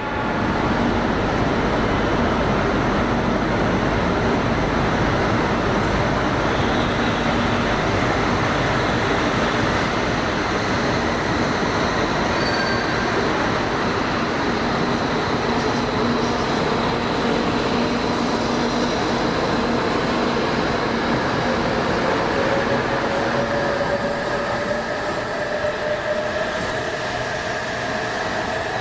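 E956 ALFA-X Shinkansen test train moving along the platform tracks with a steady, loud rolling noise. In the last several seconds a whine slowly rises in pitch.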